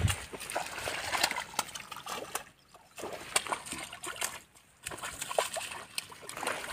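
A hooked fish thrashing and splashing in shallow water at the bank's edge as it is hauled in by hand, an irregular run of sharp splashes with a couple of brief pauses.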